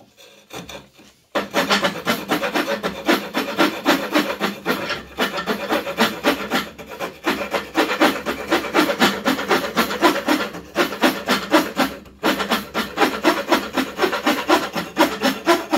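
The small folding wood saw blade of a Victorinox Workchamp Swiss Army knife cutting into a piece of wood in rapid back-and-forth strokes. It starts about a second in and pauses briefly a few times.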